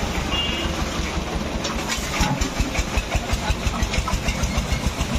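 An engine running with an even, rapid beat of about four to five strokes a second, the beat growing more distinct about two seconds in.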